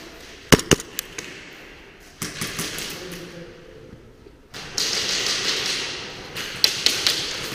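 Airsoft gunfire: four sharp pops in the first second or so, then two stretches of fast ticking and two more sharp pops near the end.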